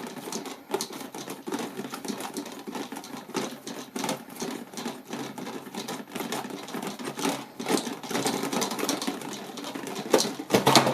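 Small plastic spring clamps being handled and worked, a quick uneven run of plastic clicks and rattles. A louder clack comes near the end.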